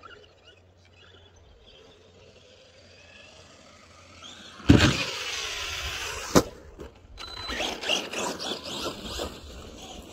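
Arrma Senton RC truck jumping a creek. Its motor whine builds, then it lands hard with a loud splash about halfway through, and a rush of spray and spinning motor follows. A second sharp knock comes soon after, then more splashing and wheel noise as it drives on.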